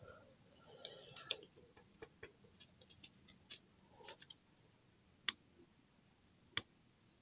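Light clicks and taps of a plastic scraper working leftover gasket material off an aluminium engine case, with a short cluster of scraping clicks about a second in and two sharp single clicks later on.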